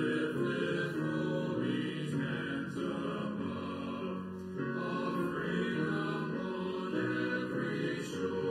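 Men's choir singing with grand piano accompaniment.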